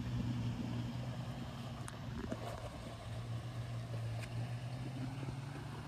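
A steady low motor hum with a constant pitch and a few faint clicks on top.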